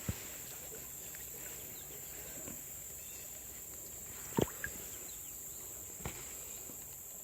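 Steady, high-pitched insect buzz, crickets or katydids, with a few short knocks from handling gear, the loudest about four seconds in.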